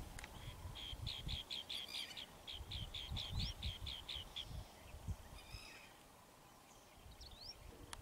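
Red-wattled lapwing calling a rapid run of sharp, high repeated notes, about four or five a second, for roughly three and a half seconds, then falling quiet. A few short rising whistles sound within the run and again near the end.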